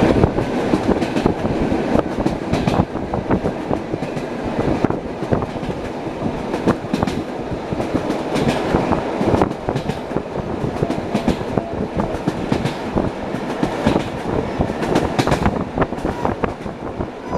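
Wheels of an ED9M electric multiple unit clattering over the rail joints as it runs, heard inside the carriage: a steady rumble with frequent sharp clicks.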